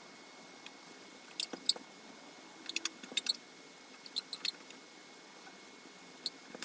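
Pen writing on paper: faint, short scratchy strokes in several small clusters, over a faint steady high-pitched tone.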